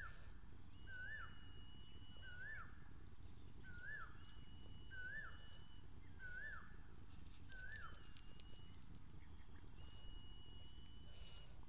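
An animal repeating a short call that rises and then drops, about once every second and a half, seven times, stopping about eight seconds in. A thin, steady high tone comes and goes a few times behind it.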